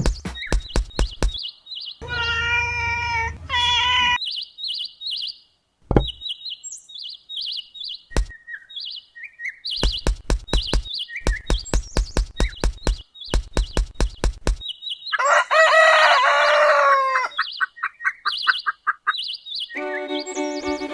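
Small birds chirping, with a rooster crowing once, long and loud, about fifteen seconds in, among runs of quick sharp clicks. Music comes in near the end.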